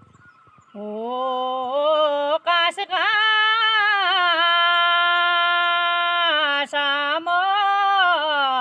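A woman singing a Kumaoni nyoli folk song with no instruments: long, drawn-out high notes with wavering ornaments, starting about a second in.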